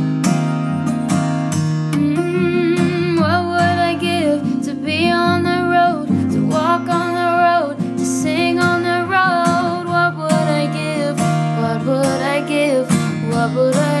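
Background song: strummed acoustic guitar, with a sung melody coming in about three seconds in.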